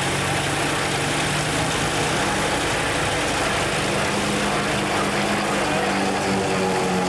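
Propeller-driven aerobatic aircraft flying overhead in a two-ship display: a steady piston-engine drone over an even hiss, its pitch shifting from about four seconds in as the planes manoeuvre.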